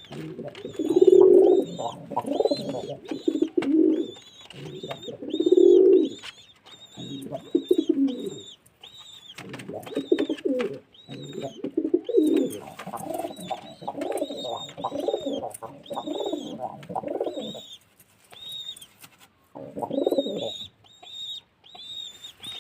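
Pigeons cooing in repeated low phrases with short pauses between them, while another small bird chirps steadily over them, two or three high chirps a second.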